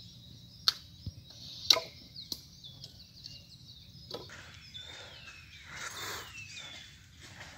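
A hatchet chopping into a branch: two sharp strikes about a second apart near the start, then a few lighter knocks. Birds sing throughout, with clearer whistled calls in the second half.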